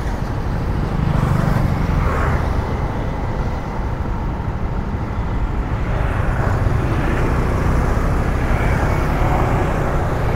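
Road traffic on a city avenue: vehicle engines and tyres running steadily, a continuous low rumble.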